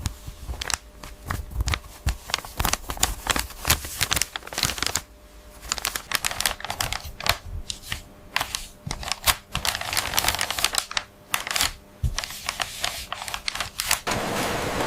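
Rapid, irregular clicking and tapping, like small hard objects being handled, with short pauses twice. Near the end it gives way to a steady hiss.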